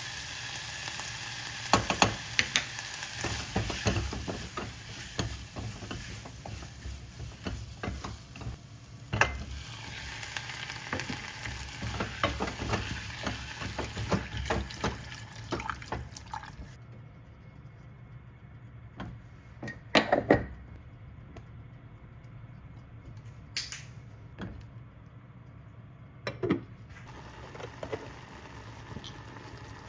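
Chicken and onion frying in a saucepan, sizzling, while a spatula stirs and scrapes, clicking and knocking against the pan. The sizzle stops a little past halfway, leaving only a few separate knocks of the utensil on the pan.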